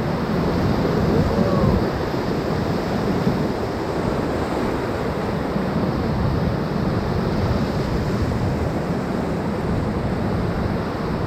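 Steady rush of whitewater on the Middle Ocoee River around the raft, with wind buffeting the microphone.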